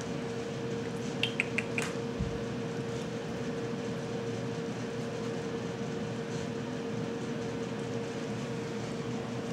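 Kitten eating from a stainless-steel bowl: a quick run of four or five light metallic clinks against the bowl about a second in, over a steady hum.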